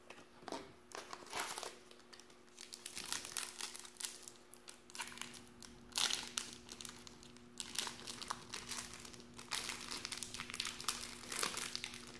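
Foil wrapper of a Collector's Choice basketball card pack crinkling as it is pulled open by hand, in a run of sharp crackles that are loudest about six seconds in and near the end.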